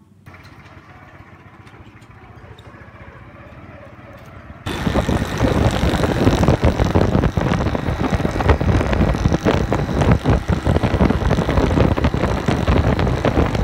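Motorcycle engine running steadily at a low level. About four and a half seconds in, it gives way abruptly to the much louder sound of the motorcycle under way: heavy wind buffeting on the microphone over the engine.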